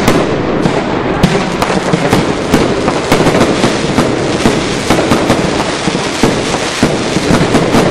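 Fireworks going off at close range: a continuous barrage of sharp cracks and crackling, denser from about a second in.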